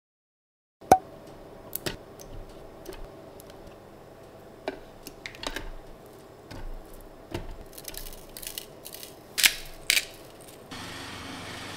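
Hands dropping crumbled pieces of food into a plastic food-processor bowl: scattered taps and knocks on the plastic, with two sharper clicks near the end, then a steady hiss in the last second.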